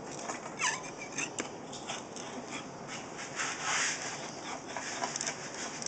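Knife blades scraping old silicone off aquarium glass panes: a run of short rasping, scratching strokes, with a brief falling squeak about half a second in.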